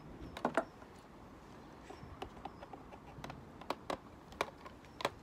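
Irregular small clicks and taps of hand tools as wires are cut and stripped and screwed into the terminals of a solar charge controller, the loudest pair about half a second in.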